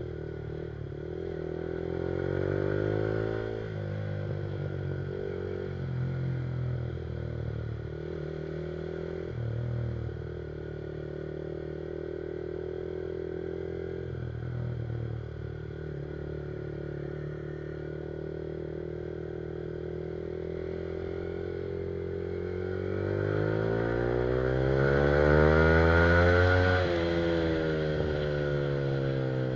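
Yamaha R15's single-cylinder engine through an aftermarket Akrapovic exhaust, under way, its note climbing and dropping with the gear changes. Near the end it revs up hard for a few seconds, peaks, then falls off.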